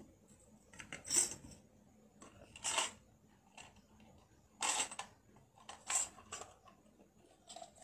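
Metal bangles clinking against each other as they are handled, in four short jingles spread over several seconds.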